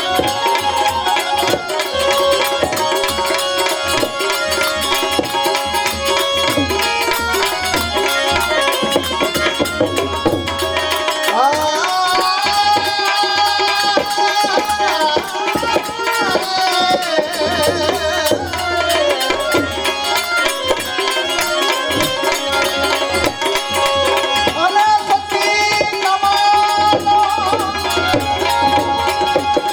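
Instrumental interlude of Gujarati devotional santvani music: tabla keeping a steady rhythm under a melodic instrumental line that bends in pitch, with no singing.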